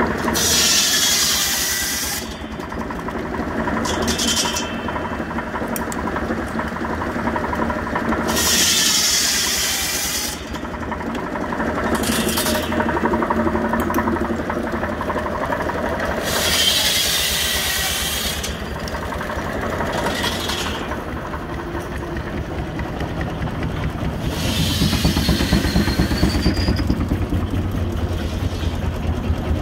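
Steam-driven shingle mill running: the circular saw cuts shingles from a wooden block, six cuts of a second or two each with a high whine, under the fast, steady beat of the small steam engine that drives it.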